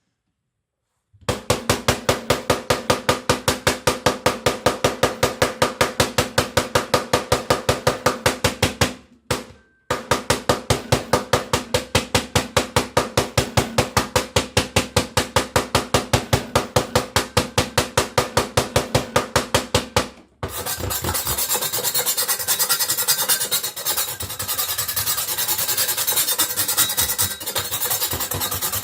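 Chinese cleaver's edge bashed rapidly into a plastic cutting board, about five strikes a second, in two runs with a short pause. About two thirds of the way in it changes to a continuous rasping as the blade is scraped held vertical across the board.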